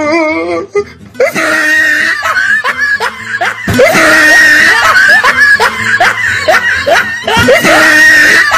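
Loud dubbed-in laughter sound effect, starting about a second in as rapid repeated laughing that seems to loop every few seconds, over a music bed.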